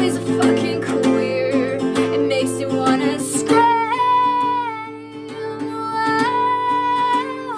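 Acoustic guitar strummed in steady chords, with a singing voice holding long, slightly wavering notes over it from about halfway through.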